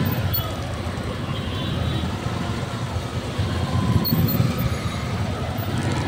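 Steady rumble of congested street traffic, heard from among the rickshaws, with a few faint clinks.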